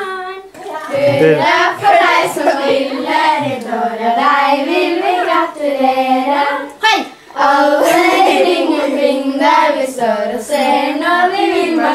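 Group of children singing a birthday song together, with a short break about seven seconds in.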